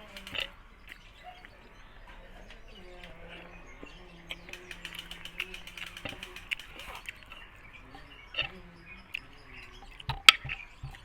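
Close-up eating sounds: a run of rapid wet clicks and smacks of chewing, with a sharp knock near the end.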